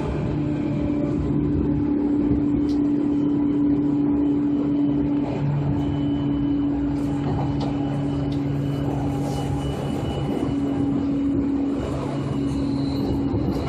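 Seibu 2000 series electric train running at speed: a steady motor and gear hum with a couple of held tones over the rumble of wheels on rail.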